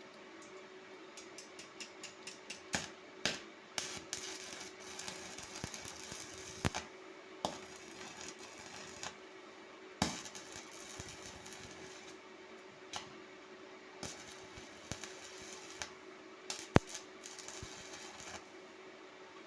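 Irregular sharp clicks and taps, some much louder than others, with short stretches of hiss over a faint steady hum.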